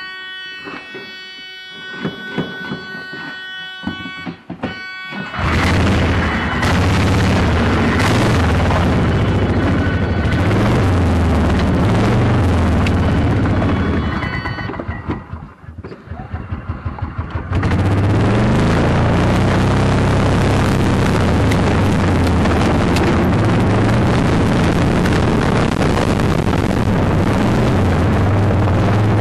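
The old Club Car gas golf cart's small engine fires up about five seconds in and runs loudly, its speed rising and falling. About halfway through it falters to a rapid sputter, then picks back up about two seconds later and keeps running.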